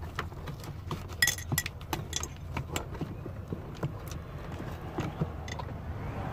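Small metal objects being handled: scattered light clicks and metallic clinks, with a few ringing chinks between about one and two and a half seconds in, over a low steady hum.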